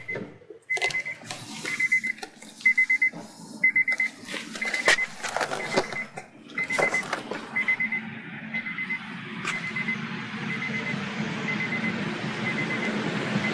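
An electronic beeper sounding a short, high beep about once a second. Sharp knocks come in over the first half, and a low, steady rumble builds up underneath in the second half.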